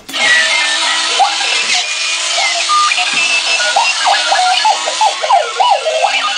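Runaway wheeled alarm clock's alarm going off with scattered electronic beeps and chirps that turn into fast warbling up-and-down sweeps from about four seconds in, over a steady hiss of its drive motor and wheels.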